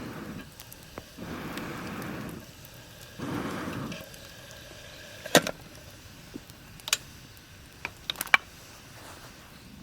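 Three short stretches of rustling, then a handful of sharp clicks and knocks, the loudest about halfway through and a quick pair near the end.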